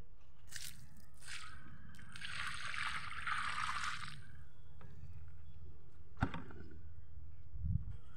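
Water poured from a bucket onto the soil around a newly planted sapling, splashing and gurgling for about two seconds in the middle, with a few light knocks and a low rumble throughout.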